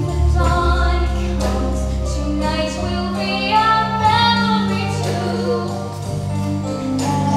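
A musical-theatre song sung from the stage over instrumental accompaniment, with long held notes above a steady low bass line.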